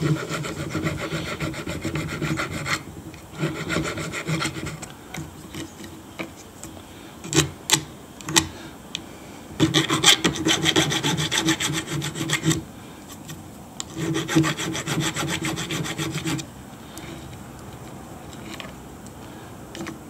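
Small hand file rasping on the steel of a Victorinox knife blade, taking off a burr. The strokes come in several runs of quick short strokes broken by pauses, with a few sharp clicks about halfway through, and the filing stops a few seconds before the end.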